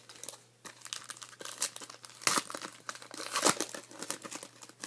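Crinkling and crackling of plastic card packaging as trading cards are handled, irregular throughout, with louder crackles at about two and a quarter and three and a half seconds in.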